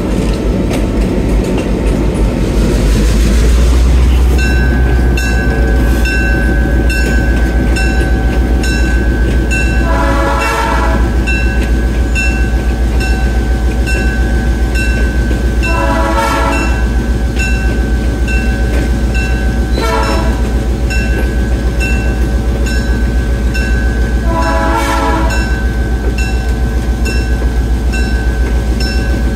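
GP7 diesel locomotive's horn sounding the grade-crossing pattern: two long blasts, one short, one long. The locomotive bell rings steadily from a few seconds in, over the steady rumble of the running engine.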